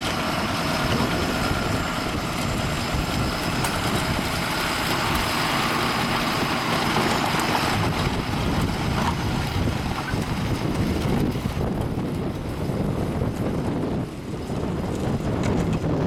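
John Deere 6930 tractor's six-cylinder diesel engine working steadily under load while pulling a reversible plough through grass ley. The sound dips a little in the last few seconds as the tractor draws away.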